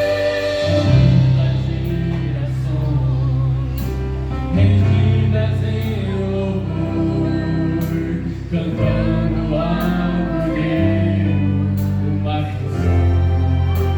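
Church orchestra playing a slow gospel hymn, with sustained chords over a bass that moves to a new note every few seconds, and singing over the top.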